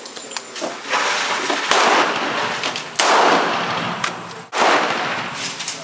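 Several gunshots about a second or more apart, each a sharp crack followed by a long echo that dies away.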